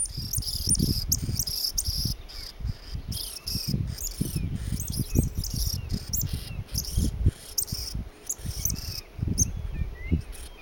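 Norway lemming squeaking angrily: a rapid run of short, high-pitched squeaks at one pitch that goes on for about nine seconds, then only a couple more near the end. This is the lemming's defensive call. Low, irregular rumbles run underneath.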